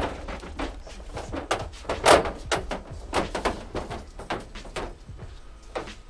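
Irregular knocks and clunks as a car's alloy wheel and tyre are pulled off the hub and handled, with one louder thud about two seconds in.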